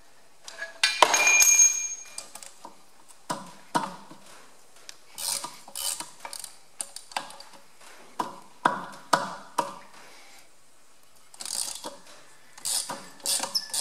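A half-inch spanner working the fan-to-water-pump bolts loose on a Massey Ferguson 135. Irregular metallic clicks and clinks of steel on the bolt heads and hub, with one brief ringing clink about a second in.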